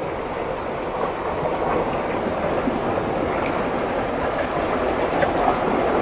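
Seawater washing around shore rocks at the water's edge, a steady rushing.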